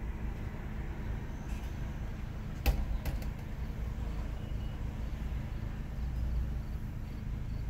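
Steady low rumble of an idling car, heard from inside its cabin, with one sharp click a little under three seconds in and a couple of fainter ticks just after.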